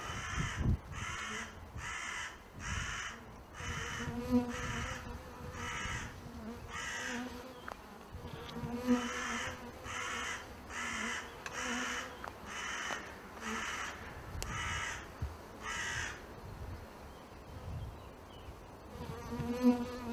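Honeybees buzzing in short on-and-off hums around a hive being raided. Over them comes a harsh, rasping sound repeated a little under twice a second, which stops about four seconds before the end.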